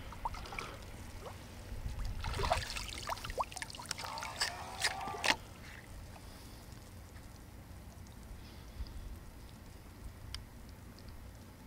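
Shallow water splashing and dripping for about three seconds as a staked motorized duck decoy is set down into it, then only faint low background noise.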